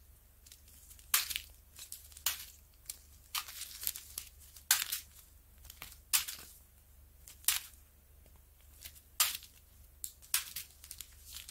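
Small plastic zip-lock bags of diamond painting drills crinkling as they are handled, in short, irregular rustles about once a second.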